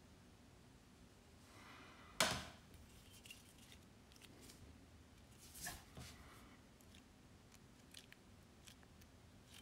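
Handling noise from a knife being turned in the hand: a short rustle leading into a sharp click about two seconds in, another rustle and click after about five and a half seconds, then a few faint ticks.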